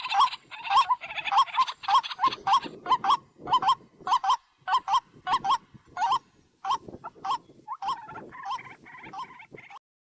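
White-breasted waterhen calling: a fast series of short, hoarse honking notes, about two or three a second, with sharp clicks among them. The calls grow fainter near the end.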